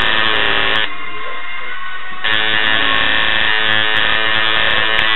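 Electric tattoo machine buzzing. It stops a little under a second in and starts again about two seconds in, over background music.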